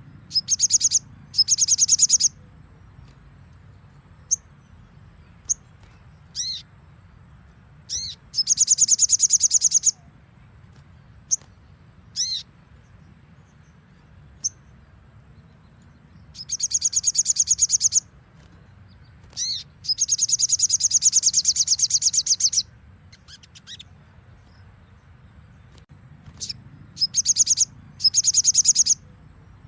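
A sogon songbird singing in loud bursts of very fast, high trilled notes, each burst lasting one to three seconds, about six times. Between bursts come short single sliding call notes and a few faint ticks.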